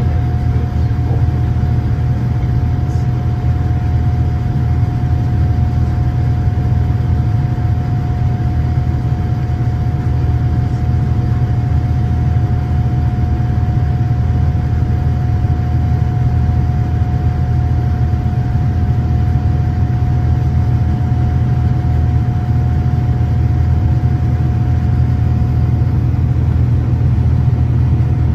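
Cabin noise of a Boeing 787-9 in its climb, heard beside its GEnx-1B engine: a steady deep rumble with a thin steady tone over it.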